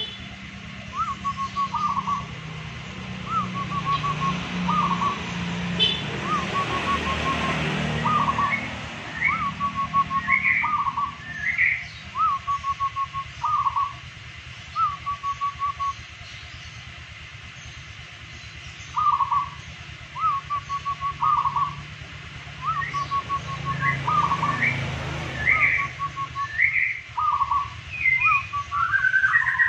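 Zebra dove (perkutut) cooing: phrase after phrase of a rising note followed by a quick run of short notes, with a break of a few seconds midway. Higher rising chirps come in between, twice.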